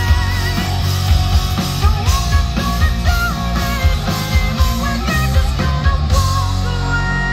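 Live rock band playing: electric guitars over a driving drum beat. Near the end the drums stop and a guitar chord rings on.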